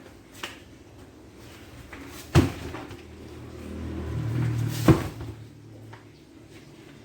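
Two sharp clacks about two and a half seconds apart, with a low hum swelling between them.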